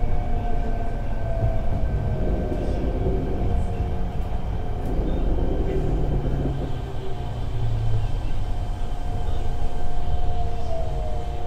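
Fukuoka City Subway 1000N series electric train running, recorded on board: a steady wheel-and-rail rumble with a steady motor whine above it, and a tone that slides down in pitch near the end.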